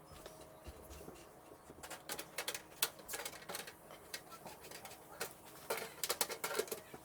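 Rapid small clicks and rattles of computer parts and screws being handled during assembly. They come in clusters from about two seconds in, thickest near the middle and again near the end.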